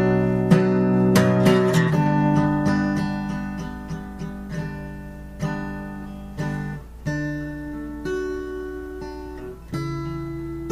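Acoustic guitar playing an instrumental passage of struck chords, each left to ring and fade, with no singing.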